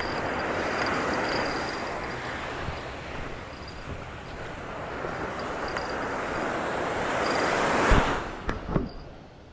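Ocean surf: waves breaking and washing in, the rush swelling and easing twice, with a sharp knock and a couple of clicks near the end.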